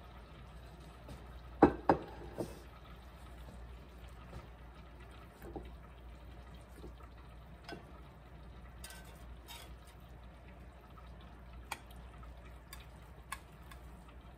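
A metal slotted spatula cutting through meatloaf in a glass baking dish, with scattered light clinks against the glass. Two sharp knocks come about a second and a half in.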